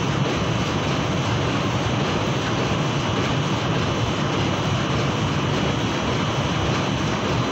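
Steady, fairly loud hum of running machinery, even throughout with no rhythm or change.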